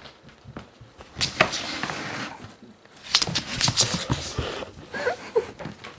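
Cat scrambling on a hardwood floor right by the microphone: two bursts of scuffling and scraping, about a second in and about three seconds in, each lasting about a second.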